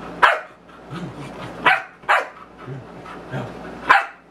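A dog giving four sharp play barks, a second or two apart, at a person teasing it in a peekaboo game.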